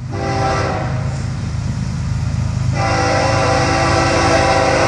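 Air horn of an approaching Florida East Coast Railway freight train, led by GE ES44C4 locomotive 818, sounding a long steady chord for the grade crossing over the locomotive's rumble. The chord grows fuller and louder about three seconds in.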